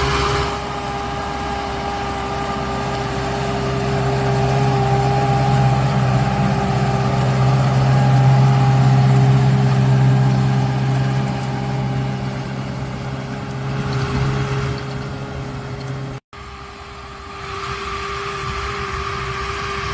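Large farm diesel engine running steadily with a constant whine over it, swelling louder in the middle. It breaks off for an instant about three-quarters of the way through, then carries on.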